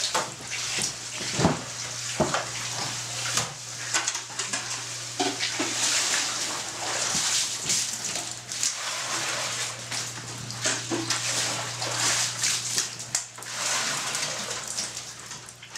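Splashing and sloshing water and oyster tissue poured from buckets into a pearl-separating spin barrel, with a few knocks of the buckets, over a steady low hum.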